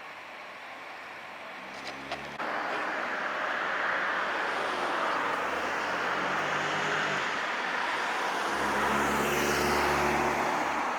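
Road traffic: motor vehicles running past with engine hum and tyre noise, getting louder about two and a half seconds in.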